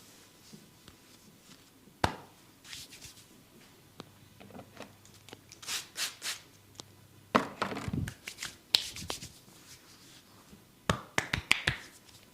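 Massage hands working on bare skin: a sharp crack about two seconds in, then three clusters of quick slaps and pops, the last a rapid run of five or six.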